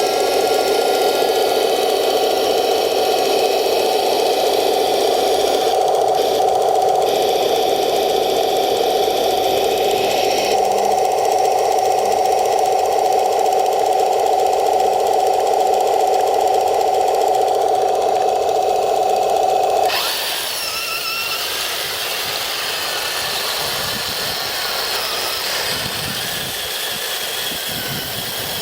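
Electric drive motors and gearboxes of an RC model tank with metal tracks whining steadily under drive, cutting off suddenly about two-thirds of the way through and leaving a quieter, rougher running noise.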